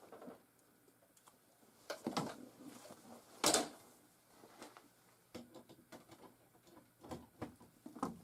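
Scattered clicks and knocks of hands handling the jukebox power supply and its wiring: a small cluster about two seconds in, the loudest single knock about three and a half seconds in, then a few lighter ticks.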